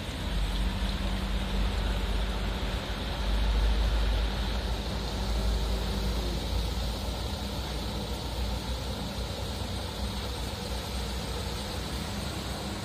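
Daihatsu Xenia's engine running as the car drives slowly through knee-deep floodwater: a steady low rumble, loudest a few seconds in, with a hum that fades out about six seconds in, over the hiss of water around it.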